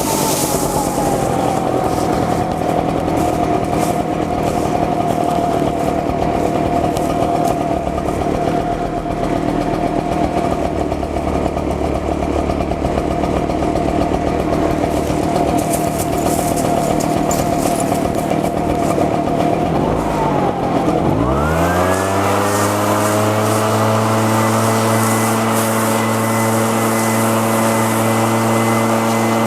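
Gas leaf blower engine running at high throttle with a steady note. About twenty seconds in the throttle is let off, the pitch dropping sharply, then it revs back up and holds steady again.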